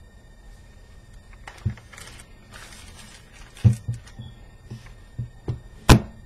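Camera gear being handled: several dull knocks with rustling between them, then a single sharp click near the end, the loudest sound.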